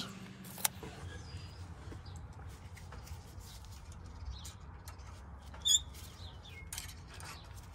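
Faint low background rumble with a single sharp click under a second in and a brief high warbling chirp about two-thirds of the way through.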